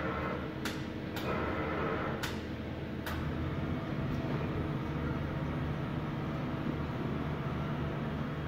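Cincinnati Milacron Dart 500 CNC machining centre running with a steady mechanical hum, with four sharp clicks in the first three seconds. A low steady tone in the hum grows stronger about three and a half seconds in.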